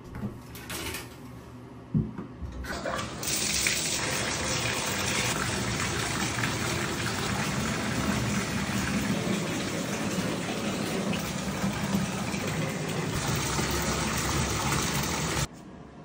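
Tap water running into a bathtub as it fills, a steady rush that starts about three seconds in and cuts off suddenly near the end. A sharp click comes just before it.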